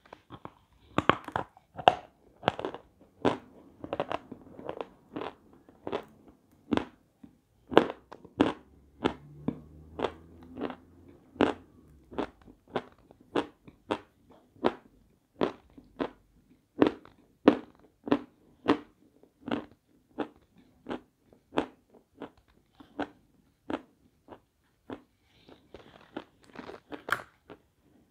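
Close-miked chewing of hard, crunchy eating chalk: a sharp crunch with each bite, in an even rhythm of about one and a half crunches a second.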